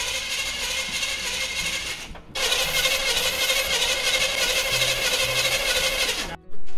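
Starter cranking a 350 small-block Chevy V8 in two attempts, about two seconds and then about four, with the engine not firing because the distributor is not hooked up.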